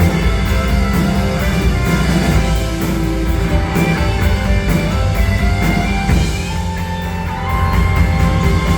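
Rock band playing live: guitars over bass and a drum kit.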